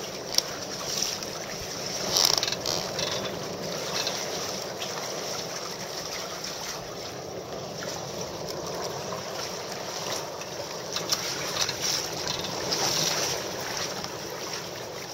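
Sea water rushing and splashing along the hull of a sailing catamaran under way in choppy water, with louder splashes now and then.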